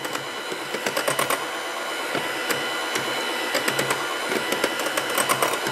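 KitchenAid electric hand mixer running steadily at a lowered speed, its beaters whipping chilled evaporated milk in a glass bowl, with frequent light ticks.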